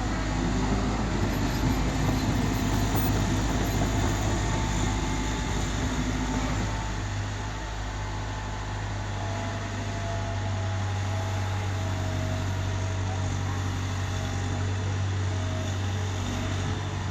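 Hydraulic excavator's diesel engine running steadily with a low hum, easing slightly about seven seconds in.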